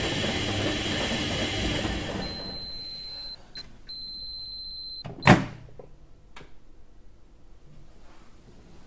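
Background noise fading out, then a thin steady high electronic tone that stops about five seconds in. A single sudden loud knock follows, falling away quickly, then a few faint knocks.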